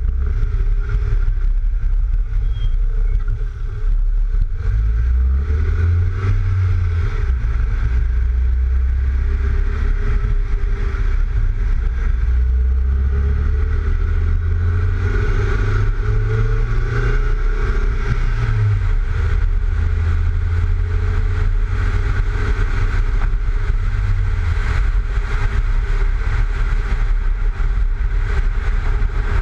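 Mk3 VW Golf driving, heard from a camera mounted low beside the front wheel: heavy wind rumble on the microphone over tyre and road noise, which the owner puts down to the roof racks. The engine note rises and falls as the car speeds up and slows, busiest in the middle of the stretch.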